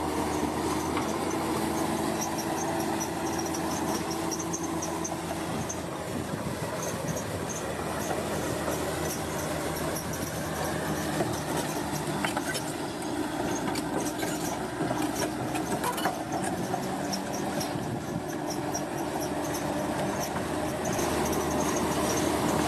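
Crawler bulldozer working: its diesel engine runs steadily under the squeak and clank of its steel tracks, with a fast, even run of small high squeaks and now and then a sharp click.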